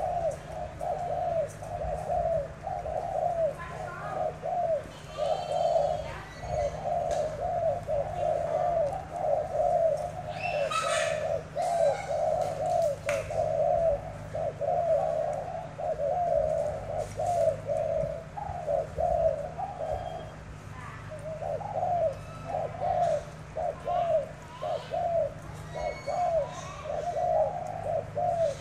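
Caged male spotted doves cooing almost without pause, a dense run of short, repeated low coos as two birds challenge each other in a cooing duel. A few faint higher chirps of small birds come and go, mostly a third of the way through.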